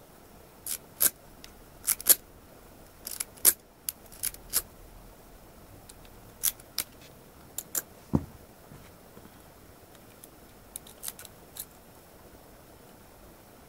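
Metal lock pick and tension wrench clicking in the keyway of a 6-pin ERA euro profile cylinder as its pins are picked: sharp, irregular small clicks, some in quick clusters, with one duller knock about eight seconds in.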